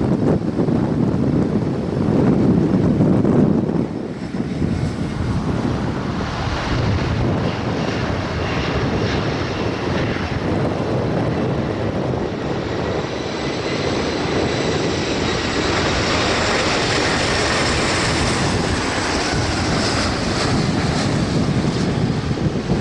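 A jet airliner's roar at touchdown, with wind buffeting the microphone, for the first few seconds. Then a four-engined Airbus A340-300 on final approach, its CFM56 engines making a steady jet rush with a high fan whine that comes up in the second half.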